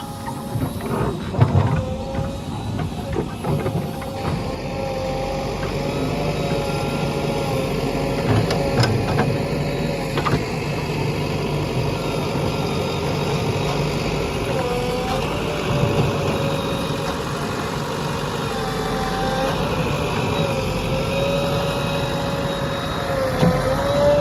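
A JCB 3DX backhoe loader's diesel engine running, with a steady whine that wavers slightly in pitch over the engine rumble. Several sharp knocks come in the first few seconds and again around eight to ten seconds in.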